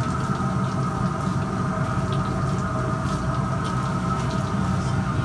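Steady hum of a running machine with several pitched tones, overlaid by light clicks and wet slaps of fish being filleted on a wet steel table.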